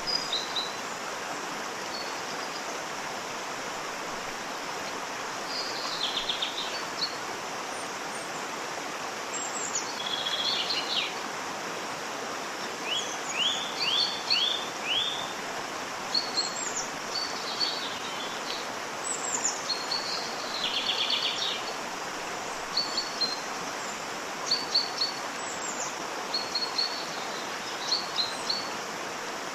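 Steady rushing of a waterfall, with small birds chirping over it in short bursts every second or two, including a quick run of falling whistles about a third of the way in.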